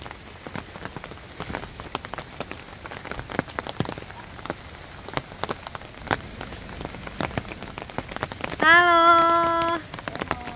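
Steady rain, with many drops tapping sharply on an umbrella overhead. Near the end a voice calls out once, held for about a second.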